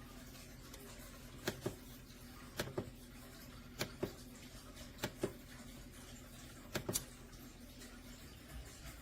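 Light plastic clicks from the Cuisinart single-serve coffee maker's control buttons being pressed, mostly in quick pairs, five times at intervals of a second or so, over a faint steady hum.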